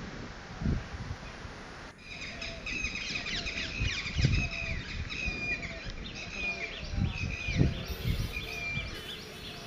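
Red-wattled lapwing calling: short, high, sharp notes repeated a few times a second, starting about two seconds in. Low bumps and background noise run underneath.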